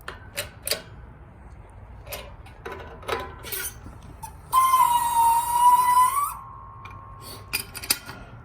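Rivets being pressed through an aluminum control arm: scattered metallic clicks and ticks, then about halfway through a loud, high, steady squeal lasting nearly two seconds that rises slightly at its end and dies into a faint held tone, followed by a few more clicks.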